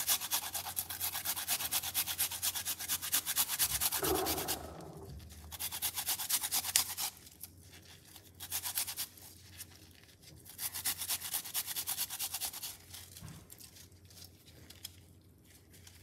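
Fresh turmeric root rubbed back and forth on a flat stainless-steel hand grater in quick, rasping strokes. A steady run at first, then shorter bouts with pauses between them.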